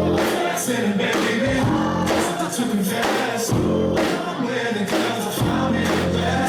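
Live pop music with a singer's voice over sustained bass notes and a beat.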